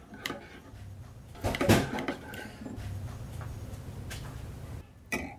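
A spoon clinking lightly in a ceramic cup as a drink is stirred, with one loud thud or crash off to the side about a second and a half in.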